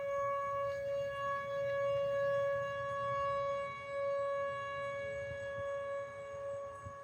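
Outdoor civil-defense warning siren sounding a steady, held tone for a tornado warning, swelling and fading in loudness. A second, slightly lower siren tone joins about five seconds in.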